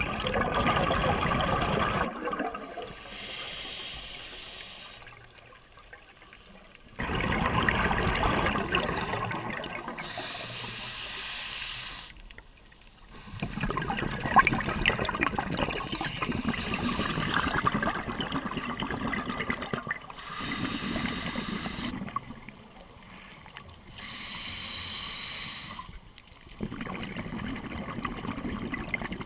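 Scuba regulator breathing underwater: noisy bubbling exhalations alternate with quieter, higher hissing inhalations in slow, even breaths about every six or seven seconds.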